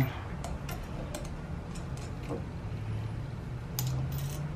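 Scattered light metallic clicks and taps as a hydraulic handbrake lever and its slotted metal mounting bracket are handled and fitted together, with bolts being started by hand, over a low steady hum.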